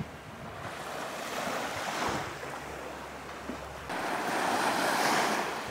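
Small waves breaking and washing up a sandy shore, with wind rumbling on the microphone; the wash swells twice, loudest about four seconds in.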